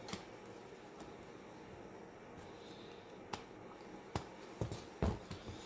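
A few faint, short clicks and taps of small hard parts and tools being handled, over a quiet steady background.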